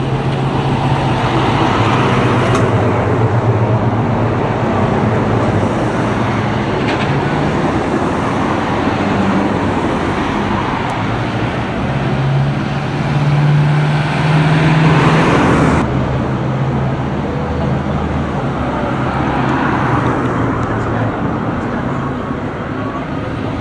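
Decorated box trucks' diesel engines running as the trucks drive slowly past one after another, a steady low engine hum with road noise. The sound swells to its loudest about fifteen seconds in, then drops off sharply.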